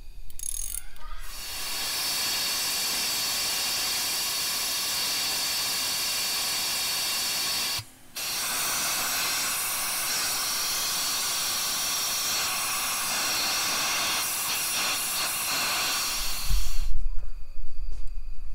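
Compressed air hissing steadily from a blowgun nozzle pushed into a freshly tapped spark plug hole, clearing out the metal chips, with one brief break in the flow about halfway through. Near the end the air stops and there are knocks and handling noise.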